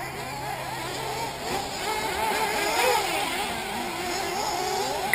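Several 1/8-scale nitro RC buggy engines running at once, their pitch rising and falling as the cars accelerate and brake around the track.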